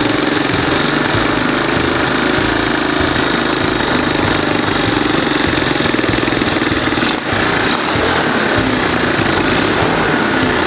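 Honda ATV's single-cylinder four-stroke engine running steadily after starting, with a brief knock about seven seconds in.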